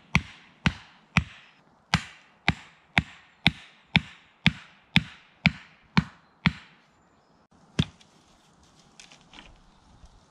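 A wooden stake being hammered into the ground with rapid wooden knocks, about two a second, each ringing briefly. The blows stop about two-thirds of the way in, followed by one last knock and then the rustle of dry leaves underfoot.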